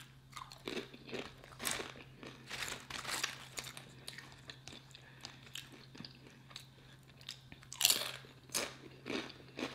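Close-miked crunching and chewing of salsa-dipped tortilla chips: irregular crisp crunches throughout, loudest in a cluster about eight seconds in.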